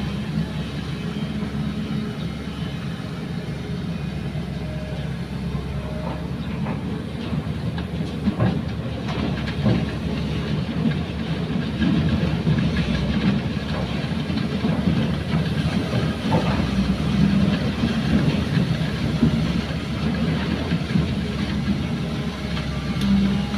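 JCB crawler excavator's diesel engine running steadily under load while it digs sand and swings to dump it into a dump truck, with a few knocks partway through.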